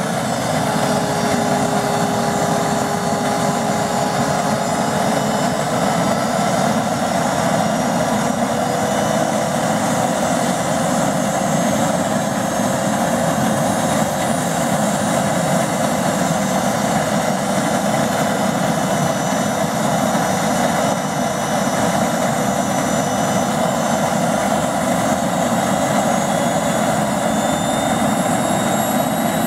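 Small gas-turbine engine of a radio-controlled CH-53A scale helicopter running on the ground, a steady loud rush with a thin whine. The whine slowly rises in pitch in the last several seconds.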